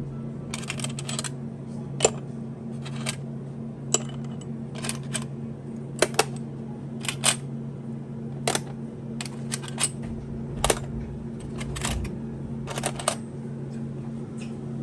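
Small metal objects clinking and clicking irregularly as they are handled and set down, one to three sharp clicks a second, over a steady low hum.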